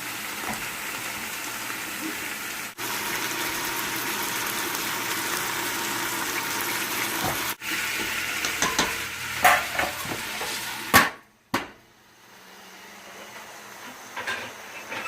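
Chicken pieces sizzling in fat in a pot, a steady hiss with a few clinks and knocks of a utensil against the pot. About three-quarters of the way through, the sizzle cuts off, leaving a quieter hum with a couple of light clicks.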